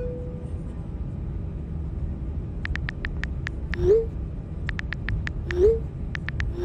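Smartphone keyboard taps in quick runs, each run followed by a short rising pop of a chat message being sent: three pops in all, the loudest sounds. A low steady airliner cabin hum runs underneath, and the tail of a chime note fades out at the start.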